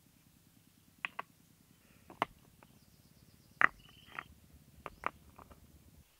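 Irregular sharp knocks and taps, about seven spread over a few seconds, with a short high squeak in the middle.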